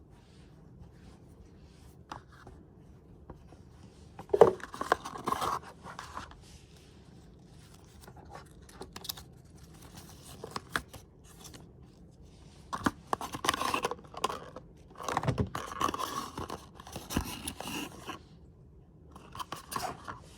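Hands unpacking a speedcube's box and packaging: bursts of scraping, rustling and tearing with sharp clicks, loudest about four seconds in and through the second half.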